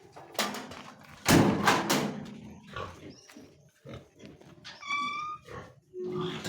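Pigs grunting and squealing in a series of rough calls, the loudest about a second in, with a short high-pitched call near the end.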